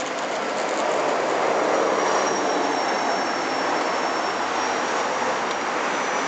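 Steady rush of road traffic, swelling over the first couple of seconds and then holding, with a faint thin high tone above it.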